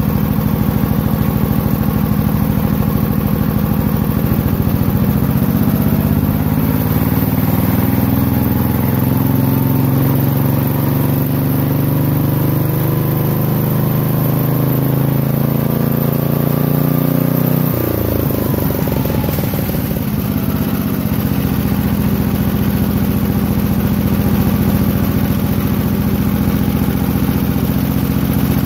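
Cast-iron Briggs & Stratton single-cylinder flathead engine running, its speed climbing slowly as the throttle linkage at the carburetor is worked by hand, then dropping back sharply about two-thirds of the way through and settling at a lower steady speed.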